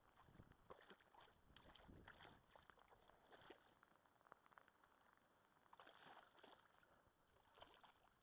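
Faint, scattered splashes and sloshing of water as a hooked trout thrashes at the surface and is scooped into a landing net, mixed with small knocks and rustles of handling.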